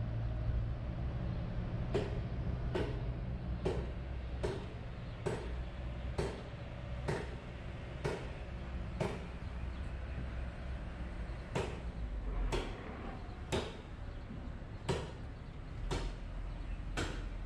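Footsteps on stone paving at a steady walking pace, a sharp click a bit more than once a second, over a low steady rumble.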